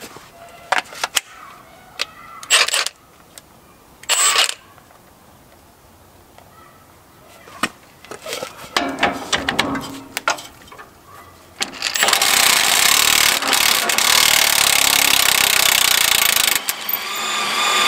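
Impact wrench hammering at a suspension bolt in one long burst of about four and a half seconds, after a few separate knocks and clanks of tools on metal.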